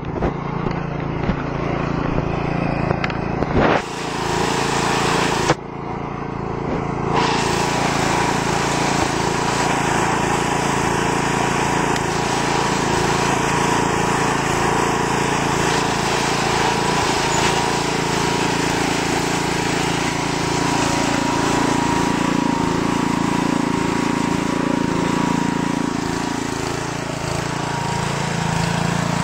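Lawn tractor engine running steadily under load as the tractor is driven through thick mud, its pitch rising near the end.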